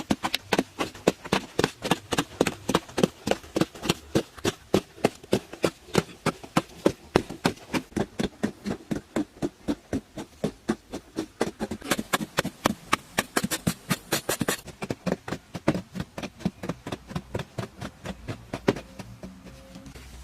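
Rapid, steady hammering, about four strikes a second, that stops near the end.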